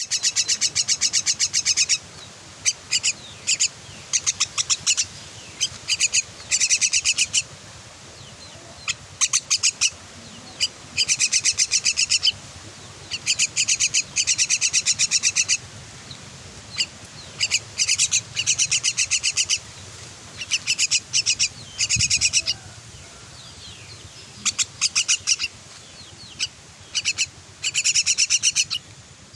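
Young myna begging, rapid strings of high chirps in repeated bouts of one to two seconds with short pauses between.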